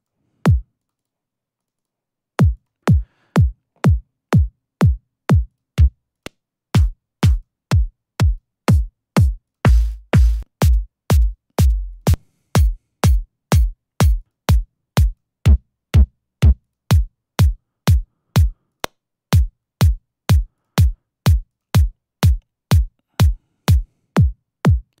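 Synthesized electronic kick drum from the Sonic Academy KICK plugin, repeating on every beat at 124 BPM, about two hits a second; each hit is a sharp click sweeping quickly down into a deep low thud. After one lone hit, the steady pattern starts about two seconds in; between about ten and twelve seconds in, the kicks run longer and boomier, and the sound shifts as different kick presets are tried.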